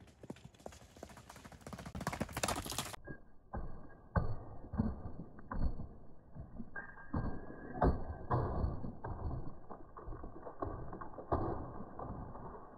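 Galloping horse's hooves striking a dirt track as it comes past, over a rushing noise at first. From about three seconds in the sound turns muffled and dull, leaving heavy thuds about every half second to a second.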